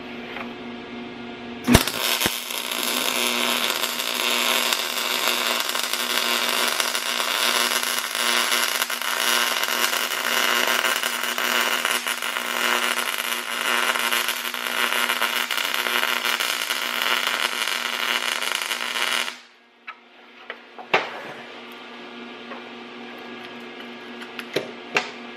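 MIG welding arc crackling steadily for about seventeen seconds as a bead is laid in small circles down a joint between two pieces of steel. It starts with a sharp strike a couple of seconds in and cuts off suddenly when the torch stops; a few light metal clicks follow as the piece is handled.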